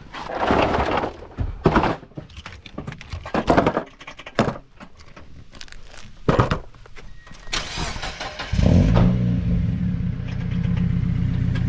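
A run of knocks and clunks, then a car engine cranks and starts about eight and a half seconds in and settles into a steady idle.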